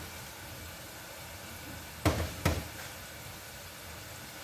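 Steady sizzling of food frying in a pan on a gas stove, with two loud knocks about half a second apart around the middle.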